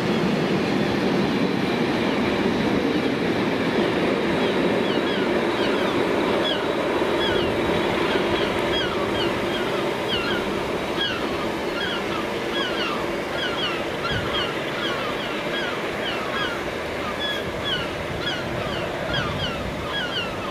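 Freight train of bogie tank wagons rolling past on the rails and fading as the end of the train draws away, its steady rumble slowly dying down. Birds chirp with many short, high, falling calls, more plainly from a few seconds in.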